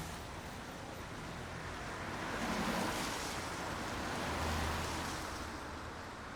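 Steady rain noise that swells twice, once around the middle and again a little later, then eases.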